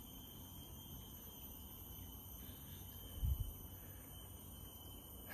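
Steady, high-pitched drone of jungle insects, several unchanging tones held at once, with a soft low thump about three seconds in.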